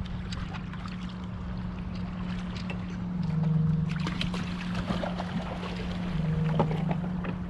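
A boat engine running at a steady hum, growing louder twice for about a second, over water splashing with scattered small clicks and knocks.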